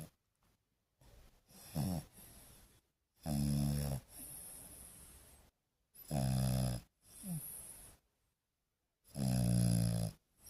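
French bulldog snoring: three loud snores about three seconds apart, with quieter breaths and a short falling-pitch sound between them.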